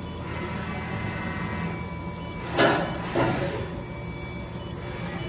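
Mori Seiki SV503/40 CNC vertical machining center running with a steady mechanical hum. About two and a half seconds in come two short hissing rushes, about half a second apart, the first the louder.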